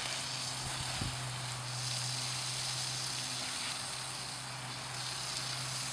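Garden hose spray hissing steadily as water sprays onto a horse and the dirt, over a steady low hum. A soft thump about a second in.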